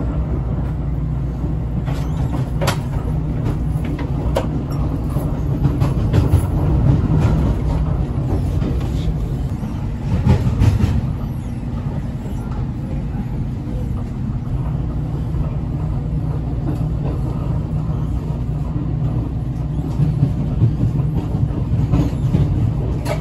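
Amtrak Acela train heard from inside the passenger car: a steady low rumble with scattered clicks and knocks from the wheels on the track, swelling louder a couple of times.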